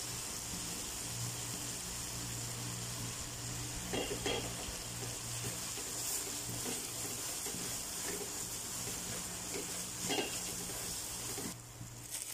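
Curry paste and kerisik sizzling in a stone-coated non-stick wok, stirred with a wooden spatula that scrapes and knocks against the pan a few times. The sizzle drops off shortly before the end.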